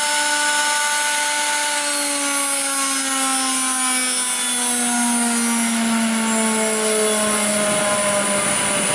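Aldinger spindle moulder's spindle and cutter head spinning down, a whine that falls slowly and steadily in pitch as the machine coasts toward a stop.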